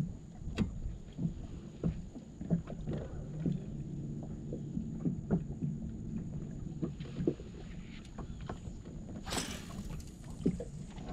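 Small waves lapping and slapping against a bass boat's hull, with frequent short low knocks, and a brief rush of noise about nine seconds in.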